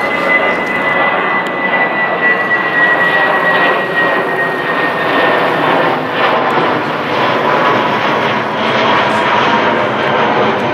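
British Airways Airbus A320-family jet airliner climbing out overhead after takeoff, its engines making a loud, steady rumble. A high whine slowly falls in pitch over the first several seconds, and a lower whine comes in later.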